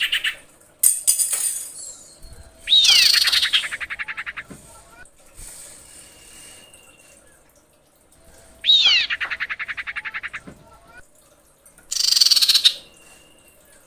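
Female common iora (cipoh) calling, as it does to attract males. Twice it gives a sharp downward-sweeping note that runs into a fast rattle fading over about two seconds, between shorter harsh notes.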